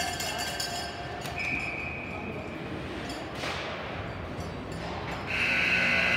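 A fainter, short, steady high tone comes first. About five seconds in, a loud, long, steady high tone sets in and keeps sounding.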